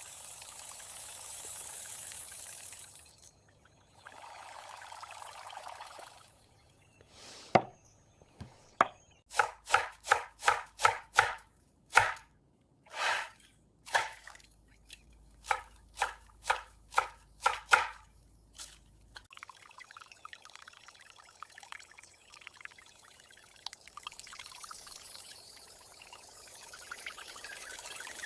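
Liquid pouring in two short spells, then a run of sharp knife chops on a cutting board, about two a second for some ten seconds. After that comes a faint steady hiss.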